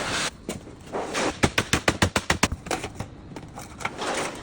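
A quick run of about ten sharp taps, roughly nine a second, between short stretches of scraping noise.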